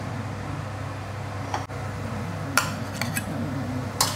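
Metal spatula clinking and scraping against a steel wok as leafy greens are stirred and lifted out of simmering gravy, with sharp clinks about a second and a half in, twice or three times around the three-second mark, and once near the end, over a steady low hum.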